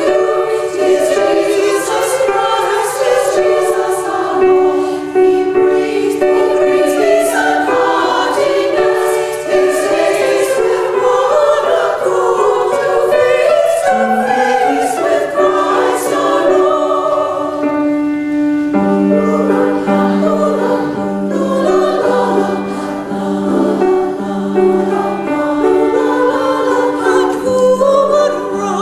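Women's chorus singing an Austrian carol in parts. In the second half a low note pulses in a steady repeated pattern beneath the voices.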